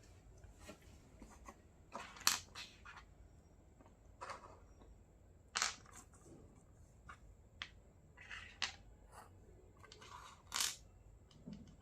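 Small plastic toy kitchen pieces and their packaging being handled: scattered light clicks and taps among short crinkly rustles, the loudest about two seconds in, midway and near the end.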